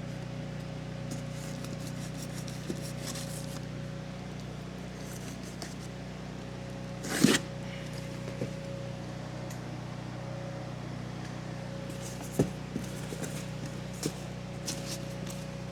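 Parts being taken out of a shipping box and handled: scattered rustling of packaging and light knocks, with one louder rustle about seven seconds in and a sharp knock near twelve seconds, over a steady background hum.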